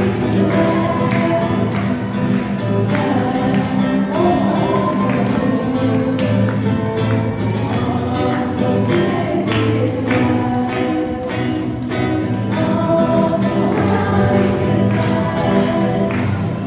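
Music: a song with singing voices over instruments and a steady beat.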